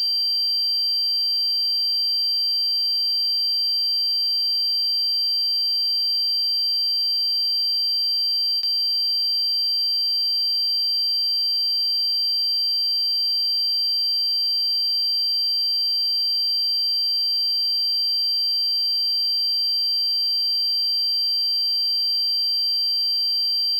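A steady, unbroken high-pitched electronic tone, several pitches held together without change, with a single faint click about nine seconds in.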